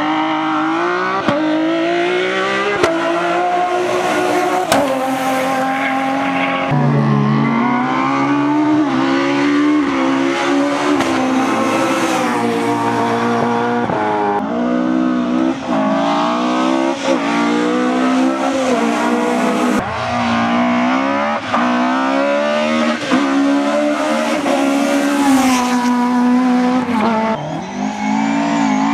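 Rally cars at full throttle, engine pitch climbing and dropping sharply again and again as they change gear and lift off, with tyre noise on the loose surface. Several passes follow one another with abrupt breaks between them.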